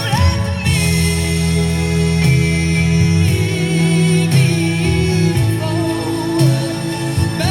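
A song playing through a micro component stereo system's speakers: a singing voice with wavering held notes over sustained low chords.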